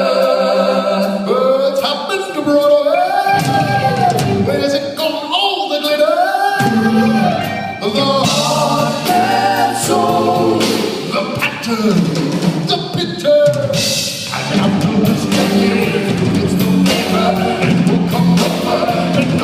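Live rock band playing with several voices singing: the music opens on a held vocal chord, then sliding vocal lines come in, and from about eight seconds in the drums hit steadily under the full band.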